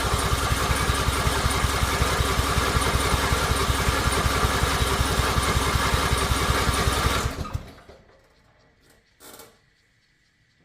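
Riding lawn mower engine cranking on its electric starter with a fast, even pulsing. It does not catch and stops when the key is let go about seven seconds in. It acts like it wants to fire but won't start.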